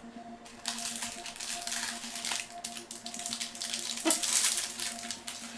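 Crinkling and rustling of foil card-pack wrappers being torn open and trading cards being handled, loudest just after four seconds, over faint steady background music.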